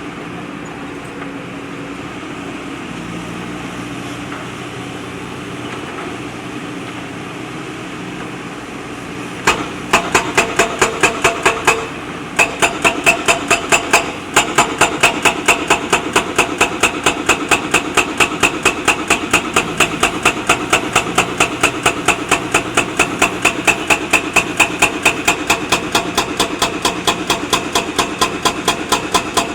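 A backhoe loader's diesel engine running steadily. About a third of the way in, a rapid, even knocking starts at roughly four to five strikes a second. It breaks off briefly twice and then carries on.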